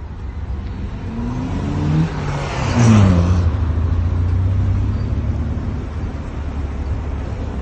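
A motor vehicle passes close by. Its engine pitch rises as it approaches and drops as it goes past about three seconds in, with a swell of tyre and road noise at the closest point. A steady low rumble of traffic follows.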